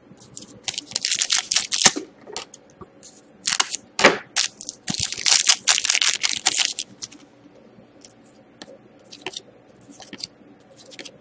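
Foil wrapper of a 2011-12 Panini Titanium hockey card pack being torn open and crinkled in several loud bursts, then lighter clicks and rustles as the cards are slid out and handled.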